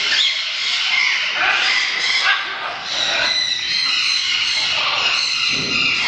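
A mixed flock of parrots, macaws among them, squawking and chattering together without a break, many harsh calls overlapping.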